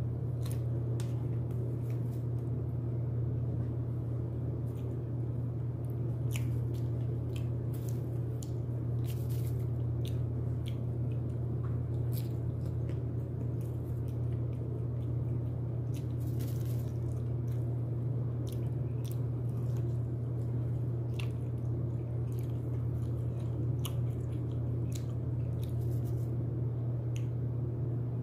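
A person eating broasted chicken close to the microphone: irregular crunchy bites and wet chewing clicks, over a steady low hum.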